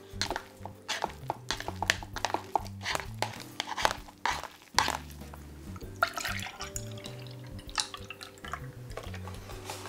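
Chopsticks clicking against a paper cup while mixing sauce into spicy instant cup noodles, with wet squishing, over background music. Later, milk is poured from a carton into a glass.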